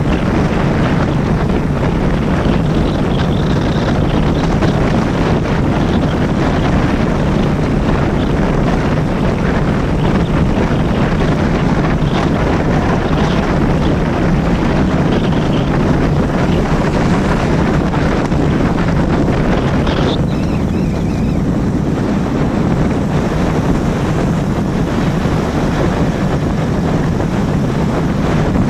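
Loud, steady wind noise on the microphone over a low rumble, with a few faint brief high tones.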